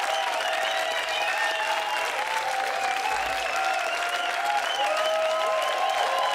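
Studio audience applauding and cheering, many voices calling out over the clapping.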